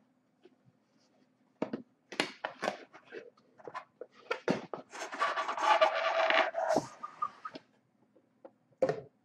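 Cardboard product box being handled and opened: a few taps and scrapes as the inner box is slid out of its sleeve, then a louder scraping, rustling stretch of about two seconds as the lid and paper come open, and a single knock near the end.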